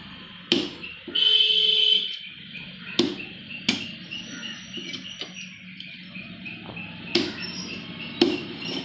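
A heavy fish-cutting knife chopping through pangasius head pieces onto a wooden log block: about five sharp chops, spaced unevenly. About a second in, a loud steady tone lasts about a second, louder than the chops, and faint high chirps repeat a few times a second through the middle.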